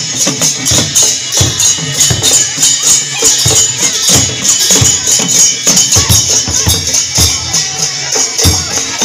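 Double-headed barrel drums beaten in a steady walking rhythm, about four strokes a second with heavier low thumps about twice a second, under a bright metallic jingling that keeps time with them, as in a procession dance.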